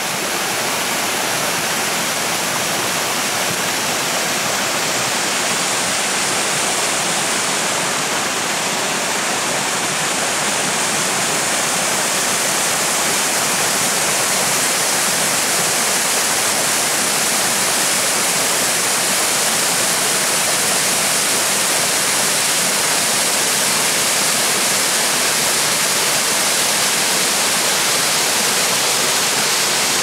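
Waterfall cascading down rock into a pool: a steady rushing hiss of falling water that grows a little louder and brighter about ten seconds in.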